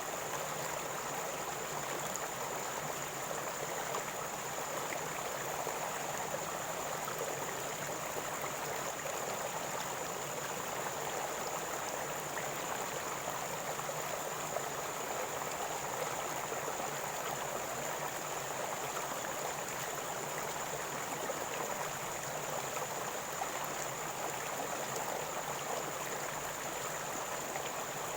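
River water flowing and gurgling over rocks, a steady rush without pauses. A thin, steady high tone runs under it.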